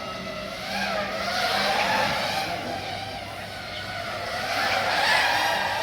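FPV racing quadcopters' electric motors and propellers whining, several pitches wavering up and down as the pilots work the throttle, swelling louder as they pass about a second in and again near the end.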